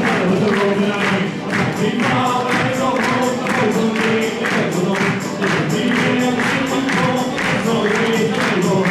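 Live Irish folk music: a squeezebox, acoustic guitar and banjo playing a lively tune, with hand percussion keeping a steady, even beat.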